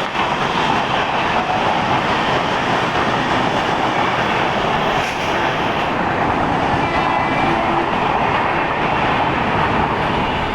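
A train running past on the tracks: a steady, loud rush of wheel and rail noise.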